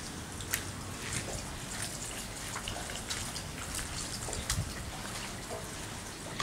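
Rain falling on wet paving and standing floodwater: a steady hiss with scattered, irregular drop ticks.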